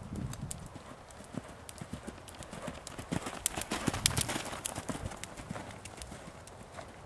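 A pony's hooves trotting on a sand arena: a continuous run of soft hoofbeats, loudest around the middle.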